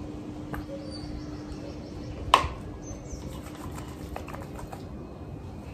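Background ambience with birds chirping now and then, a steady low hum that stops near the end, and a single sharp click a little over two seconds in.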